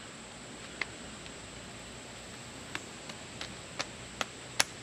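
Solo Stove wood-gas camp stove burning wood pellets with open flames: a steady hiss of fire with scattered sharp crackles and pops.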